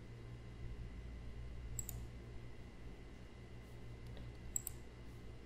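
Two quiet computer mouse clicks, about two seconds in and again near the end, over a low steady hum of room tone.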